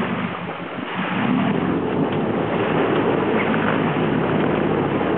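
Sportfishing boat's engines running under way, a steady low hum under the rush of water and wind; the sound grows louder about a second in.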